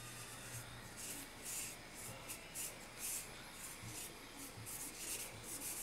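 Small paintbrush stroking and dabbing paint onto window glass: a run of short brushing strokes, about two to three a second, starting about a second in.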